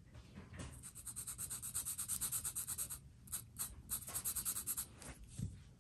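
Sharpie ultra-fine permanent marker scratching a mark onto a metal mounting bracket in fast back-and-forth strokes, several a second, with a short break about three seconds in.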